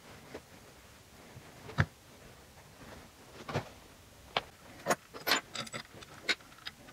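Scattered light metallic clicks and taps of small parts being handled and fitted into an aluminium two-stroke engine crankcase, with a sharper knock about two seconds in and a quicker run of clicks in the last couple of seconds.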